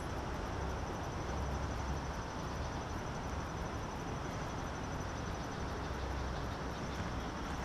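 An insect trilling steadily in a fast, even, high-pitched pulse, over a constant low rumbling noise.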